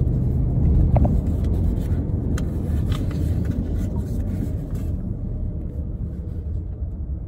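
Low, steady rumble of a car heard from inside the cabin, with a few light clicks and rustles as a package of stickers is opened by hand in the first few seconds.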